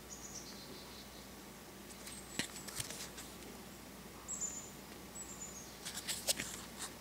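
Faint handling of a cardboard 2x2 coin holder turned in the fingers: a few light clicks and taps, with short high squeaks that fall slightly in pitch, about a second in and again around four and five seconds.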